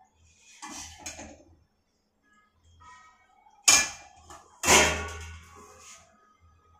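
Steel kitchenware clanking: two sharp metallic clanks about a second apart, each ringing briefly, after some softer handling clatter.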